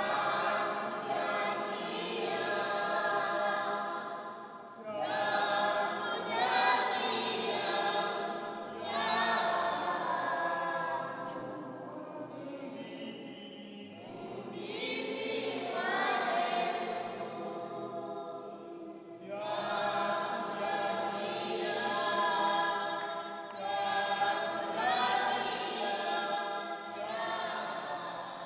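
Church choir and congregation singing a hymn together, many voices in long phrases that swell and fade about every five seconds.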